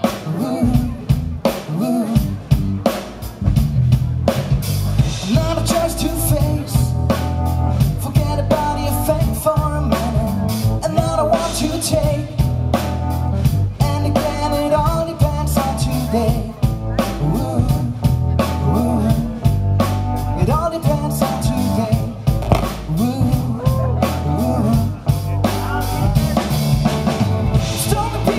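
Live band playing a song: steel-string acoustic guitar, electric bass and drum kit keeping a steady beat, with a male voice singing over them.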